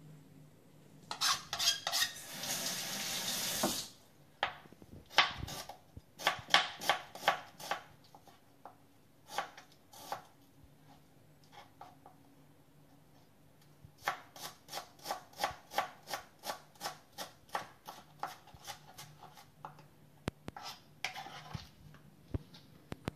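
Kitchen knife chopping shallot on a plastic cutting board: runs of sharp taps, at about three a second in the steadier stretches. About a second in, a steady noise lasts for a couple of seconds.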